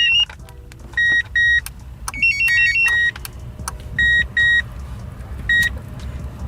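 Centurion remote-start car alarm beeping: short, high electronic beeps, mostly in pairs, repeating every second or so, with a brief warbling chirp melody about two seconds in. A steady low rumble runs underneath.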